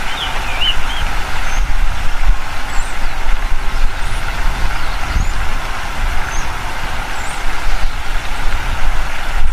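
Small birds chirping: scattered short, high-pitched chirps, a few of them close together about half a second in. They sit over a steady rushing background with a low rumble.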